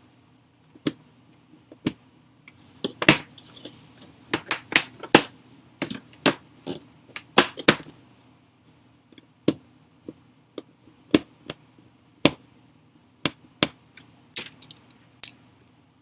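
Irregular sharp clicks, taps and clinks of hard plastic and small metal parts being handled on the laptop, most densely in the first half, over a steady low hum.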